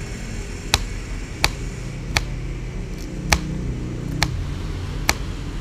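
Small kitchen knife chopping candlenuts on a plastic cutting board: six sharp knocks of the blade striking the board, roughly one a second, over a steady low background rumble.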